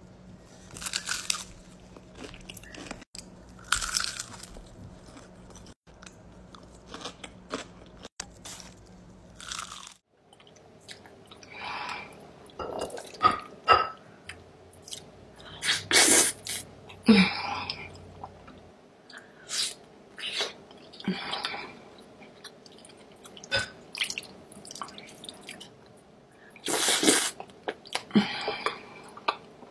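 Close-miked eating: crunching bites into crispy fried chicken wings, then chewing and mouth sounds from a fufu meal eaten by hand.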